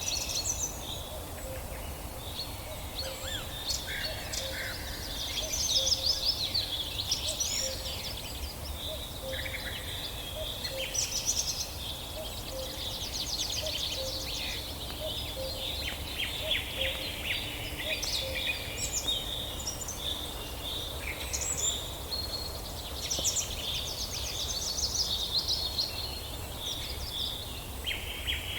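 Several songbirds singing and calling at once: overlapping chirps, whistles and quick trills without a break, over a low steady background rumble.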